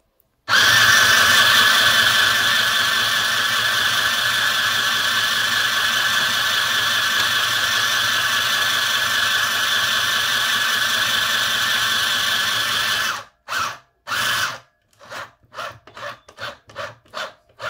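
Mini sewing machine's small motor running steadily as it stitches a row of shirring for about twelve seconds, then stopping. Two short bursts follow, and near the end a run of separate single stitches, about two or three a second.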